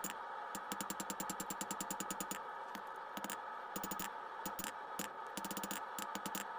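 Hand hammer striking a hot steel bar on an anvil in fast runs of light blows, several a second, with short pauses between runs, over a steady hum. The smith is squaring a section of round stock so that it can be twisted.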